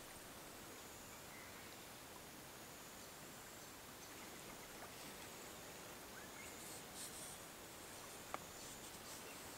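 Faint outdoor bush ambience with a thin high steady buzz, and a single small click about eight seconds in.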